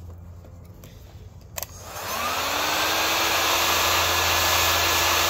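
Electric heat gun switched on after a click about a second and a half in: its fan spins up with a rising whine, then blows steadily with a loud rush of air, set on its high heat setting.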